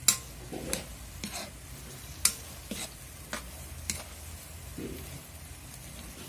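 Spatula scraping and knocking against a wok while stir-frying chicken and squid balls in sauce: sharp, irregular strokes about every half second.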